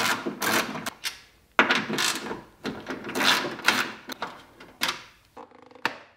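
Hand socket ratchet clicking in three or four quick runs of about a second each while two 10 mm bolts are undone, with single clicks and knocks between the runs.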